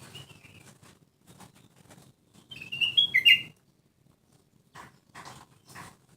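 Kutilang emas, a bulbul, giving a quick, loud burst of chattering chirps about two and a half seconds in, after a few faint notes at the start. Near the end come short rasping sounds about twice a second.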